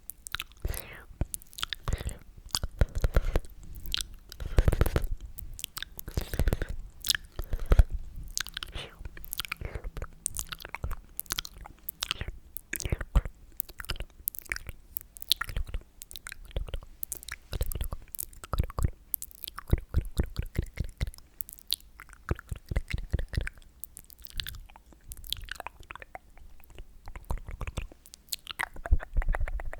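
Close-miked sticky, wet mouth sounds: dense irregular clicks and smacks of lips and tongue.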